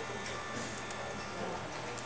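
Automatic pet food dispenser's motor whirring steadily, with a few faint clicks.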